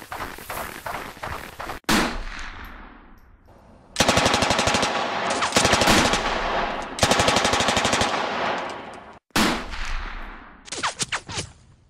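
Battle sound effects: long bursts of rapid automatic gunfire. A single loud bang with a long ringing tail comes about two seconds in and again after nine seconds, and a few separate shots follow near the end.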